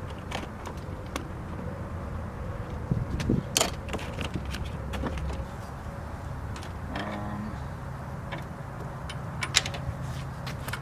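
Scattered clicks and taps of wiring and plastic vehicle trim being handled, over a steady low hum, with a brief squeak about seven seconds in.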